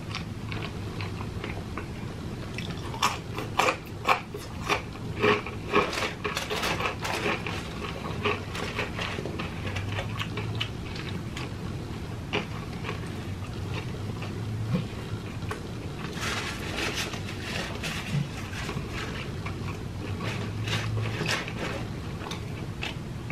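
A person chewing and crunching fried food, mostly French fries, with bursts of crisp mouth clicks a few seconds in and again later.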